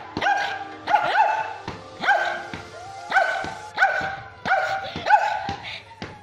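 Shih Tzu barking sharply and repeatedly, about one or two barks a second, an agitated defensive outburst at someone attacking its owner.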